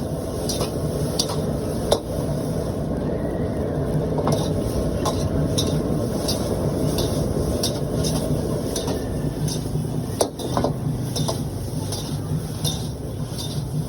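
Metal spatula clanking and scraping against a wok as hakka noodles are stir-fried, sharp strikes coming about once or twice a second over a steady low rumble.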